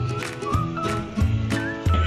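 Background music with a steady beat and a high melody line.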